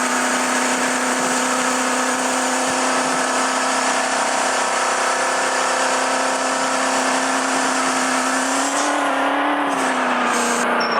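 Maruti Suzuki Eeco van engine held at steady high revs, one constant pitch that lifts slightly near the end and settles back.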